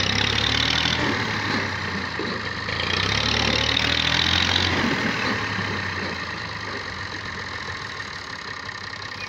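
Farm tractor's diesel engine revved hard twice under load, a few seconds apart, as it strains to pull free while stuck in soft dirt, then easing back to a lower, steady run.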